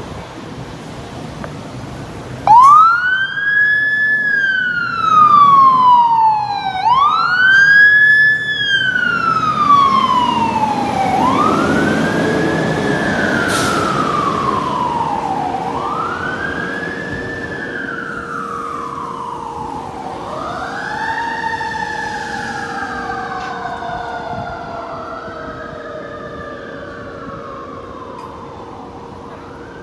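Fire apparatus siren wailing, starting about two and a half seconds in: each cycle climbs quickly to a high pitch and slides slowly back down, repeating every four to five seconds. In the second half a second wail overlaps it, and both fade as the trucks move away.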